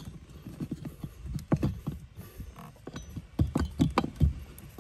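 Irregular small plastic clicks and knocks as a replacement blower motor resistor is handled and pushed into its slot in the plastic HVAC housing. The knocks come more often and louder near the end.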